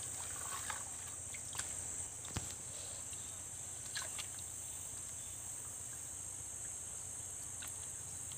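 Steady high-pitched drone of forest insects, with a few faint clicks and splashes as a gold pan is swirled in shallow muddy water.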